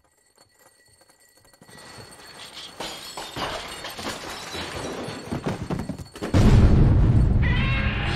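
Film sound effects of clattering and breaking that build up, then a sudden loud, deep rumble about six seconds in.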